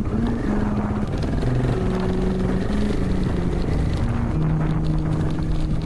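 Background music with long held low notes that change pitch in steps, over a steady rush of motorcycle engine and riding noise.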